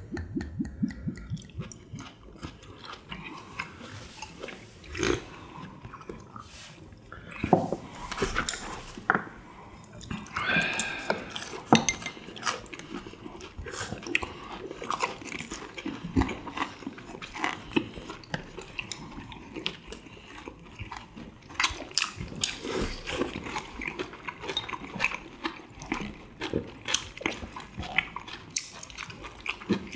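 People eating crispy fried chicken and tteokbokki close to the microphone: crunching bites and chewing, with scattered clicks of chopsticks on bowls.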